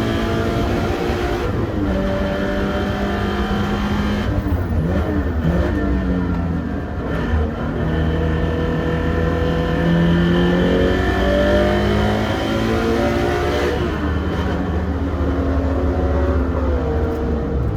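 Toyota 86 (ZN6) flat-four engine driven hard on a race track, its pitch climbing and falling again and again through the gears.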